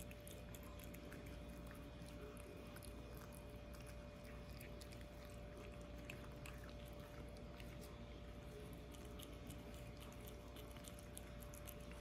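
Two cats eating wet cat food from one bowl: a dense run of small, quick, wet chewing and smacking clicks, over a faint steady hum.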